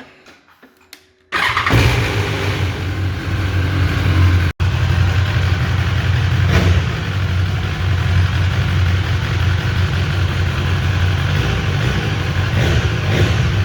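A Mercedes GLB 250's engine starting about a second in and then running steadily, with a strong low hum.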